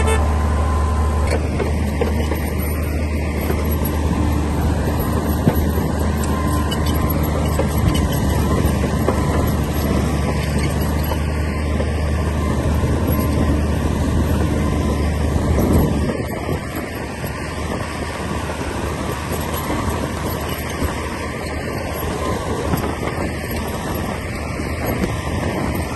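Komatsu D60P crawler bulldozer's diesel engine running under load, a steady low drone with clatter over it; about 16 seconds in the engine note eases and it runs on more quietly.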